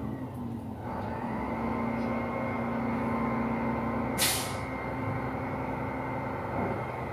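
Recycling truck's engine running steadily, with a held hum that stops about four seconds in as a short, sharp air-brake hiss bursts out.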